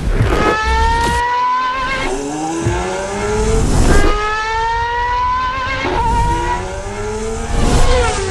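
Formula 1 car engine accelerating hard through the gears. Its pitch climbs steadily, then drops abruptly at each upshift, about every two seconds.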